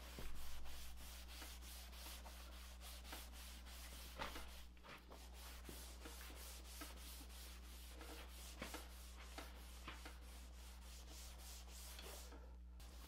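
Alcohol-soaked cotton rag rubbing over a freshly stained wooden kayak hull in quick, repeated wiping strokes, wiping the blotchy stain down with denatured alcohol to even it out. The rubbing is faint, over a steady low hum.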